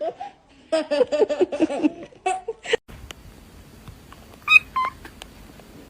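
A person giggling in a quick run of short laughs for about a second, followed by a few short, higher-pitched calls and, later, two brief high chirps.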